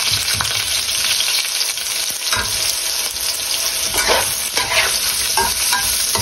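Boiled fuki (Japanese butterbur) stalks sizzling steadily as they are stir-fried in oil, with a utensil scraping and stirring them in the pan every second or so.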